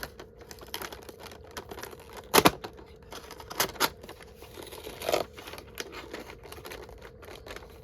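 A cardboard advent calendar compartment and its packaging being opened and handled: a run of small crinkles and clicks with a few sharper snaps, about two and a half, three and a half to four, and five seconds in.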